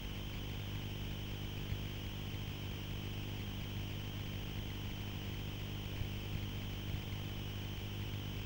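A steady low hum with an even hiss, unchanging throughout, with a few faint ticks.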